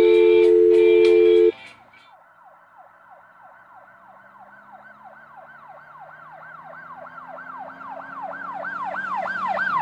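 Guitar music with a loud steady tone cuts off about a second and a half in. Then an emergency vehicle siren in a fast yelp sweeps up and down about three times a second, growing steadily louder as it approaches.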